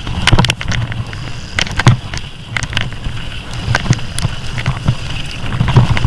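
Mountain bike rolling quickly down a rough dirt trail: wind buffeting the microphone as a constant low rumble, with the tyres running over dirt and stones and frequent sharp rattles and knocks from the bike.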